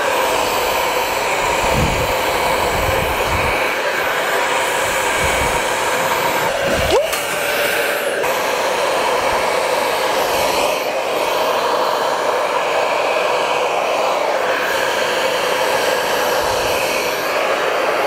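Handheld hair dryer running steadily on medium heat, blowing through a comb-style straightening brush attachment as it is pulled through hair: a continuous rush of air with a faint high whine.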